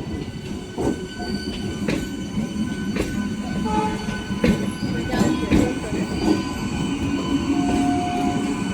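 EMU electric local train rolling slowly past, its wheels knocking over rail joints at irregular intervals about a second apart. A low rumble and a thin, steady high whine run throughout.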